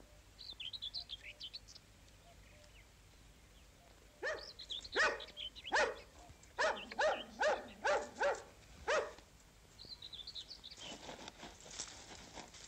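A dog barking, about nine sharp barks in a row in the middle, with faint birdsong twittering before and after.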